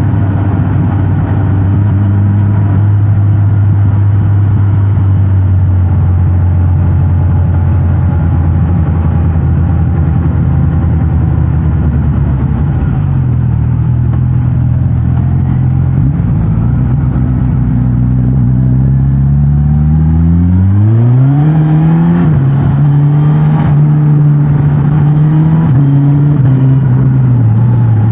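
Suzuki GSX-S 1000 GT's inline four-cylinder engine through its stock exhaust, running at steady low revs for about the first half, then picking up and revving up sharply about three quarters of the way in, holding higher revs with small dips, and easing off near the end.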